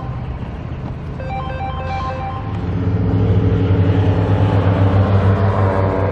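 A motor vehicle's engine running, growing louder about two and a half seconds in and staying loud. Before that, a short electronic ringing tune of repeated tones at several pitches is heard.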